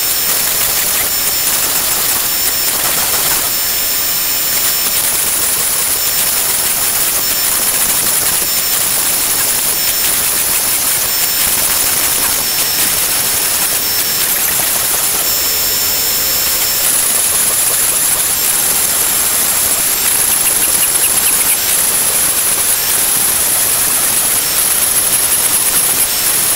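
Shapeoko XXL CNC router's trim-router spindle running at speed and cutting Baltic birch plywood: a loud, steady high-pitched whine and hiss whose high tones break and shift briefly every second or so as the bit moves along the cut.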